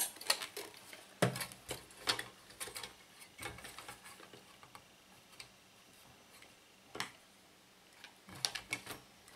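Irregular small clicks and taps of metal and plastic as a 1970s AEPI electric fan's wire guard and blades are handled and pried at with a screwdriver: dense in the first few seconds, a single sharp click about seven seconds in, and a short flurry near the end.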